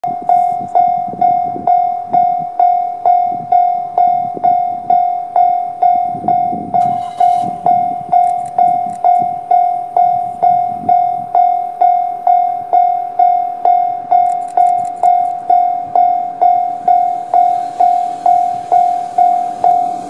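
Japanese level-crossing warning bell ringing steadily, a single pitched ding struck a little over twice a second. Near the end the rumble of an approaching freight train hauled by two EF66 electric locomotives rises beneath it.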